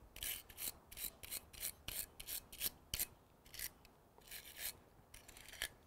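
Wire brush scrubbing back and forth over the steel jaws of hand pruners in short strokes, about three a second, with a brief pause around three and a half seconds in: cleaning the blade and anvil before sharpening.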